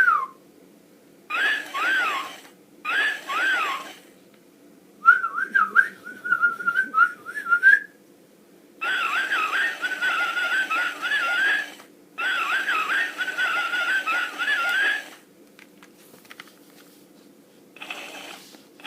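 Whistling echoed back by a Pete the Repeat Parrot talk-back toy. A short arched whistle is played back twice by the toy. About five seconds in, a longer warbling whistle follows, and the toy repeats it twice.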